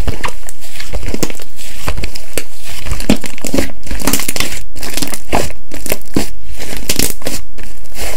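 Slime being squeezed and poked by hand, giving dense, irregular crackling and popping clicks.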